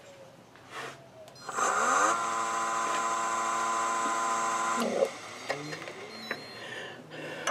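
Nova wood lathe's motor starting up, its whine rising in pitch as the chuck spins up, then running at a steady speed for about three seconds before stopping abruptly with a knock about five seconds in.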